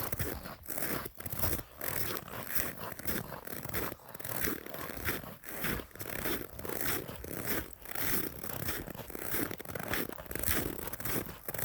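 Crunching footsteps, about two a second, steady throughout.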